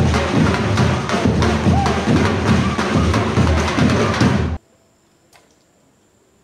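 Drum ensemble playing a fast, dense rhythm on many drums at once. It cuts off suddenly about four and a half seconds in, leaving near silence.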